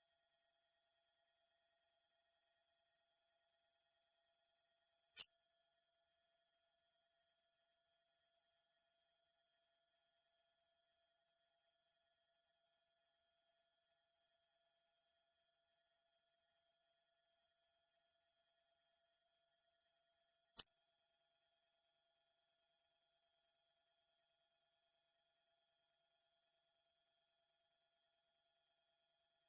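Dog whistle sound effect: one continuous, very high-pitched pure tone held steady and loud, with two faint clicks, about five seconds in and about twenty seconds in.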